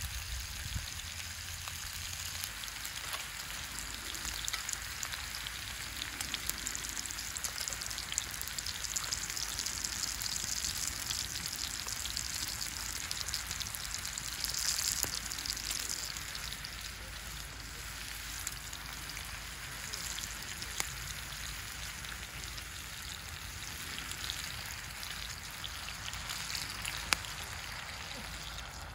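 Food sizzling in a frying pan: a steady hiss with scattered small crackles, a little louder in the middle.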